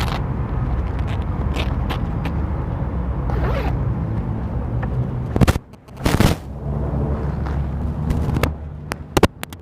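Scraping and clicking handling noises with two sharp knocks about five and a half and six seconds in, over a steady low rumble.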